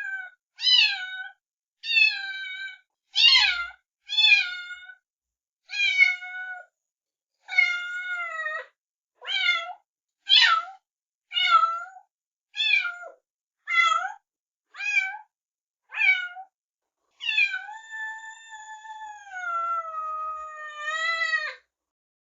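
A cat meowing repeatedly: about sixteen short meows, roughly one a second with silence between, then one long drawn-out meow lasting about four seconds that sinks in pitch.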